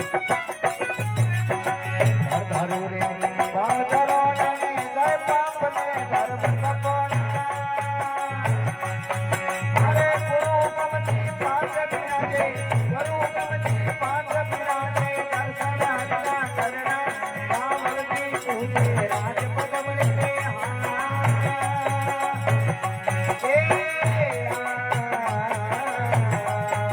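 Rajasthani folk devotional music: a wavering melody over a steady deep drum beat, with jingling percussion throughout.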